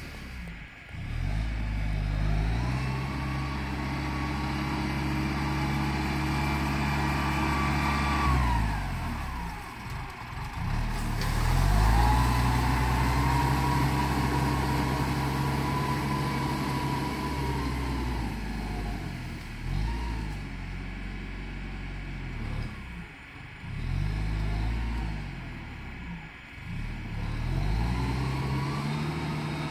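Farm tractor's diesel engine working an implement across a field, its engine speed dropping and picking up again several times. A thin whine rides over the engine, and it is loudest about twelve seconds in.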